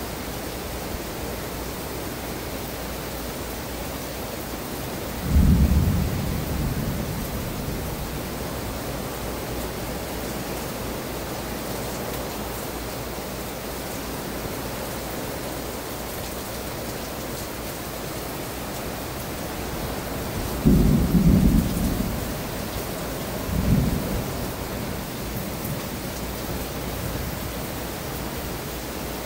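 Heavy rain falling steadily in a thunderstorm, with three short low rumbles of thunder: one about five seconds in that fades over a couple of seconds, and two more close together around twenty seconds in.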